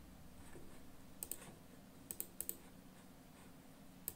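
A few faint, scattered clicks of computer keys, a pair about a second in and a quick cluster of four around two seconds in, with one more near the end, over a faint steady hum.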